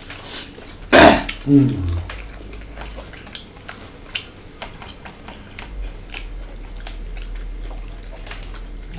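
Close-up chewing and crunching of fresh salad eaten by hand, many small crisp crunches and mouth clicks. About a second in comes one loud crunch, followed by a short sound falling in pitch.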